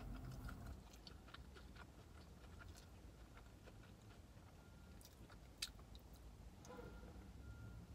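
Faint close-up chewing of a boneless chicken wing, with soft wet mouth clicks and one sharper click about five and a half seconds in. A steady low rumble of passing traffic runs underneath.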